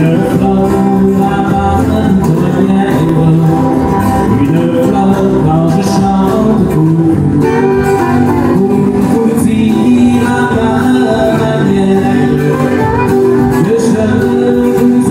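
Live country song: two acoustic guitars strummed together, with a man singing the lead vocal over them.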